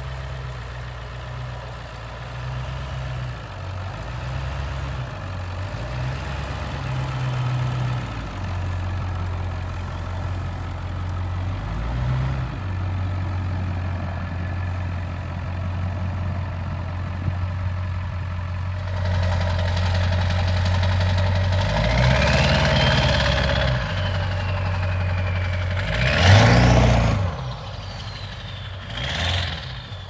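Ford 7.3 Powerstroke V8 turbo diesel with a 4-inch straight-pipe exhaust idling steadily, then revved: the turbo whistle rises and falls in pitch, the engine surges loudly twice, the second time shorter, and the whistle winds down near the end.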